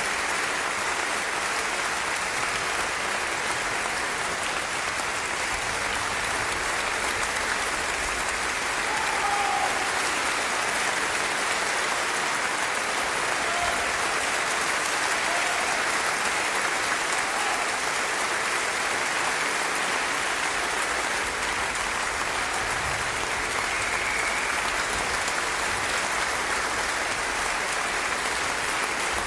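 A large theatre audience applauding: a dense, steady wash of clapping.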